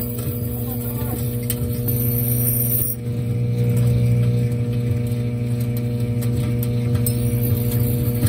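Microwave oven running with a steady low electrical hum, with a plasma ball inside. A faint high whine cuts out about three seconds in and returns near the end, with scattered clicks throughout.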